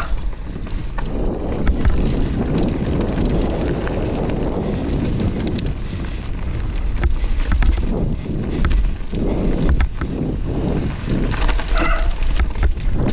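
Mountain bike descending a dirt trail: tyres rolling over dirt and loose stones, with scattered clicks and rattles from the bike and wind rumbling on the microphone. Near the end the rear hub's freewheel gives a brief high buzz while coasting.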